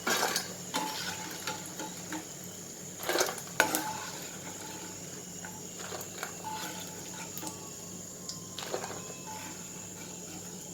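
A spoon clinking and scraping against a pan as fried dried curd chillies are scooped out of hot coconut oil, with a light sizzle. The loudest knocks come at the very start and around three to four seconds in, with another near the end.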